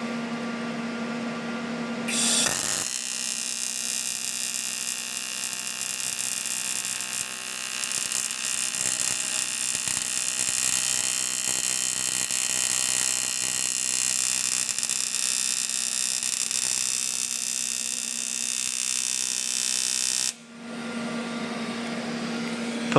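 A high-speed rotary power tool, like a die grinder, runs with a steady high whine, most likely dressing the weld on a repaired aluminium engine part. It starts about two seconds in, after a short steady hum, and cuts off suddenly a few seconds before the end.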